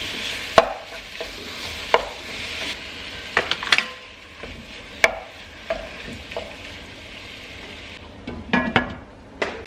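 Beef frying in a pan with garlic and onions, sizzling as it is stirred, with sharp knocks of the stirring utensil against the pan. The sizzle eases after about four seconds, and a quick cluster of knocks comes near the end.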